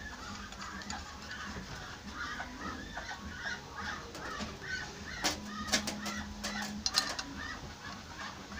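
A few sharp metallic clicks and taps from about five to seven seconds in, as small nuts and bolts are handled and fitted to the aluminium casing of a homemade gas turbine. Throughout, there is a continuous background of faint clucking-like chatter.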